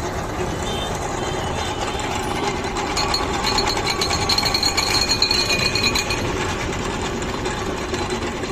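Basant cashew and dal grinding machine with a 2 HP single-phase motor running, a steady dense mechanical rattle and whir. About three seconds in it turns rougher and more uneven, with a faint high whine over it, and settles again near six seconds.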